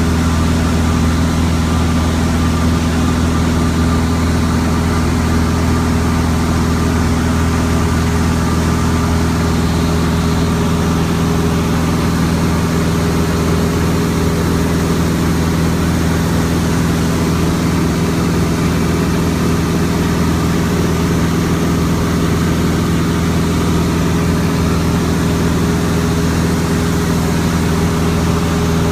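Varga Kachina single-engine light aircraft's piston engine and propeller droning steadily in cruise flight, heard from inside the cockpit.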